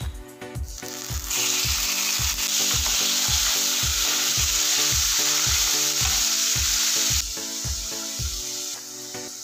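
Boneless chicken pieces sizzling as they hit hot ghee in a frying pan. The sizzle starts about a second in, stays loud for about six seconds, then eases off. Background music with a steady beat plays throughout.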